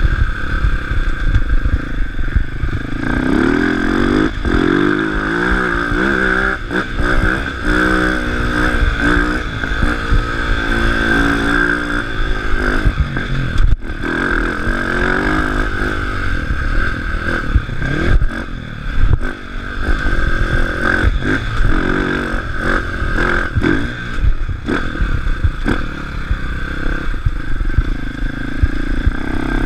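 Dirt bike engine on a motocross track, revving up and falling back again and again as the rider accelerates and shifts, heard from the bike's onboard camera. Clattering knocks mark the bike jolting over the rough dirt.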